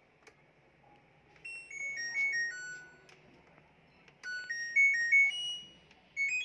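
LG top-load washing machine control board's buzzer playing two short electronic tunes of stepped beeps, then a short beep near the end, as the board is powered and its buttons are pressed on the bench.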